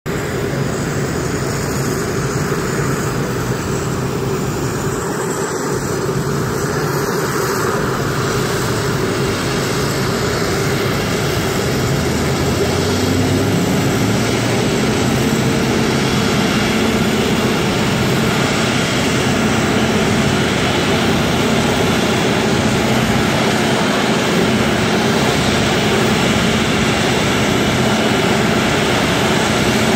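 Steady engine noise of a taxiing Air France Boeing 777 airliner, mixed with the running engines of the airport fire trucks pumping the water-cannon salute. It grows slightly louder, with a low hum added, about halfway through.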